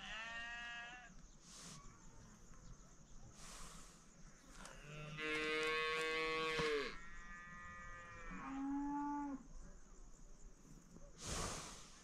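Farm animals calling: several drawn-out, moo-like calls, the longest and loudest about five to seven seconds in, a lower one near nine seconds. Three short rushes of noise fall between the calls.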